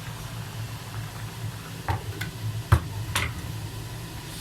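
A utensil clicking and knocking against a cooking pot four times, the loudest about two and a half seconds in, as mushrooms are stirred into a soup, over a steady low hum.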